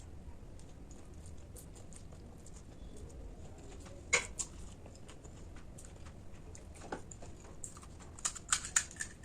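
Close-miked eating sounds: scattered sharp clicks and crunches, the loudest about four seconds in and a quick cluster near the end.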